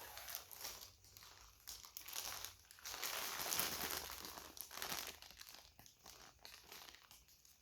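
Plastic packaging crinkling and rustling as it is handled and opened, loudest in the middle and fading near the end.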